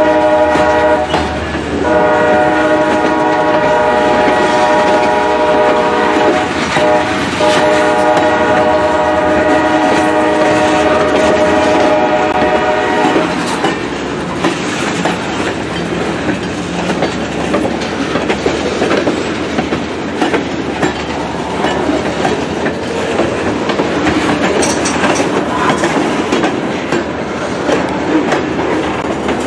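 A train horn sounding long held blasts, with a short break about a second and a half in, through the first half. Then the horn stops and the train rolls past with rumbling and wheel clatter on the rails.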